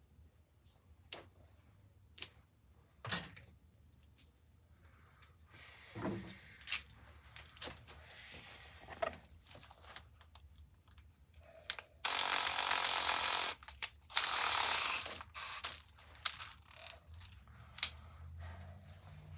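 Tool handling for a cylinder-honing job: scattered metal clicks and clatter, the kind of ratcheting sound a three-stone hone and drill make while being set up. About twelve seconds in come two short bursts of a steady mechanical whirring noise.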